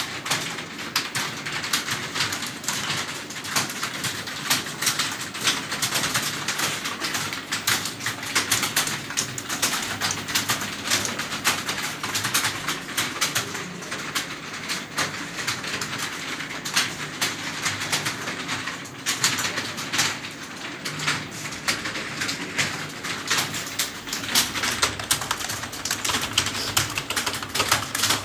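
Fast, continuous typing on a computer keyboard: a steady patter of irregular key clicks with no pauses.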